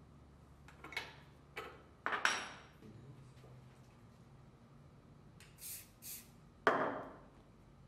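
A few metal clinks and knocks of a wrench and fittings at a bench vise, then two short hisses of an aerosol primer can sprayed onto a straight connector, followed by a louder knock near the end.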